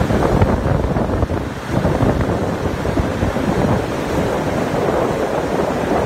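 Large waterfall and rapids on an icy river, a loud steady rush of churning water, with wind buffeting the microphone.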